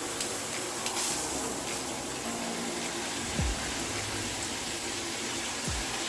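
Water spraying steadily from an SR Sun Rise six-setting handheld shower head, a continuous even hiss of running water.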